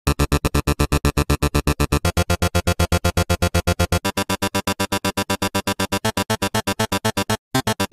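Electronic dance music: a chord chopped into rapid, even pulses, about eight a second. It cuts out briefly near the end before the fuller track comes in.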